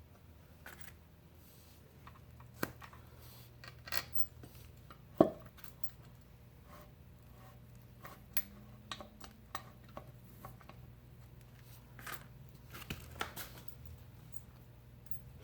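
Scattered metal clinks and light knocks as a Farmall H Lift-All hydraulic pump is worked into its reservoir and lined up with the gasket, with one sharper knock about five seconds in.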